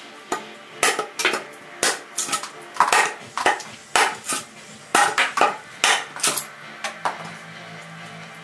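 A large fixed-blade 440C steel bowie knife striking or chopping repeatedly, about two sharp, ringing knocks a second at uneven spacing, thinning out near the end, over background music.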